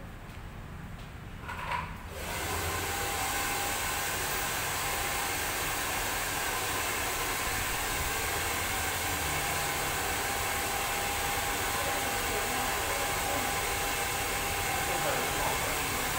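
Handheld hair dryer switched on about two seconds in and running steadily while blow-drying hair: an even rush of air with a faint steady motor whine in it.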